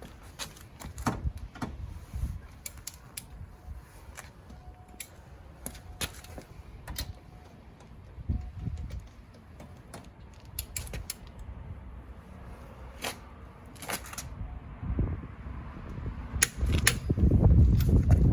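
Scattered sharp metal clicks and knocks from a torque wrench and socket working the wheel nuts, with a low rumble that gets louder near the end.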